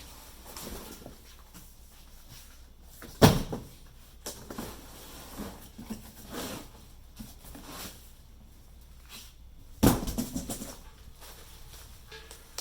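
Cardboard packaging rustling and scraping as a boxed air compressor is unpacked, with two sharp knocks, about three seconds in and near ten seconds in, the second followed by a brief rattle of smaller knocks.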